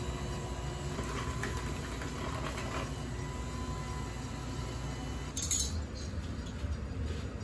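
Electric hand mixer running steadily, its beaters churning pound-cake batter in a plastic bowl. A brief sharp clatter about five seconds in.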